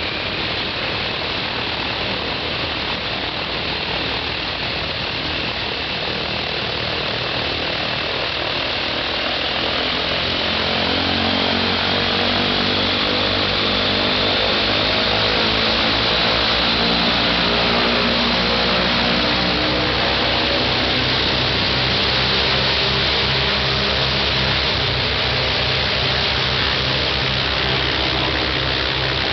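Ilyushin Il-14T's right-hand Shvetsov ASh-82T 14-cylinder radial engine and propeller running on a ground run; a whine climbs in pitch and the engine grows louder over the first half as it speeds up, then holds steady.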